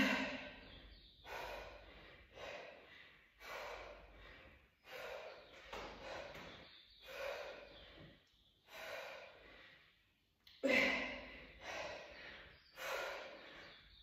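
A person breathing hard during exercise, with a short, forceful exhale roughly once a second. The puffs near eleven seconds in are the loudest.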